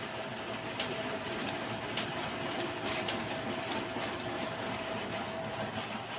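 HP LaserJet P4015n laser printer running, a steady mechanical whir and hum with a few clicks, cutting off at the end.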